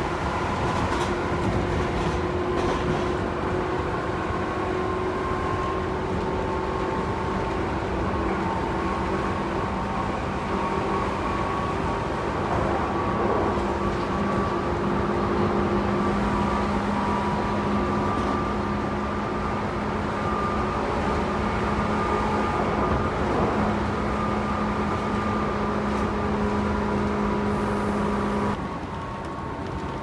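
Interior of a Tobu Tojo Line commuter train (set 11661F) running between stations: steady rolling noise with a motor hum whose pitch creeps slightly upward. Near the end the sound suddenly drops quieter.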